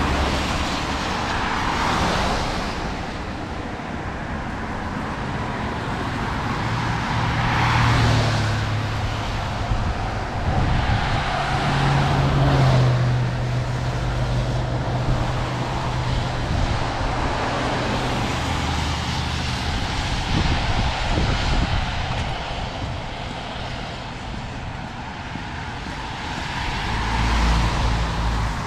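Road traffic on a rain-wet street: several vehicles passing one after another with a swelling and fading hiss of tyres, and a heavier engine's low steady hum through the middle.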